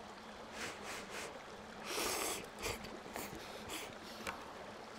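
Quiet handling sounds at an aluminium mess tin on a steel mesh table: a short brushing noise about two seconds in, then a few light clicks.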